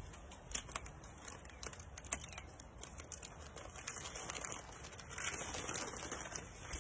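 Plastic packaging and cardboard rustling and crinkling as a box of seat covers is unpacked by hand, with scattered small clicks; the rustling gets louder about two-thirds of the way through.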